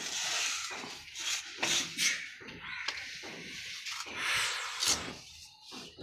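A plastering tool working sand-and-cement mortar on a wall, with several rasping scrapes and short sharp taps.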